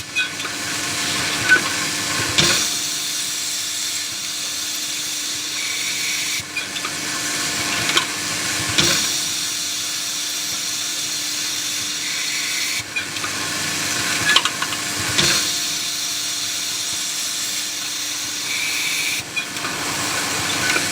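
Automatic drilling and tapping machine running through its work cycle about every six seconds: a steady hum and hiss, with a few sharp clicks or knocks in each cycle as parts are fed and worked.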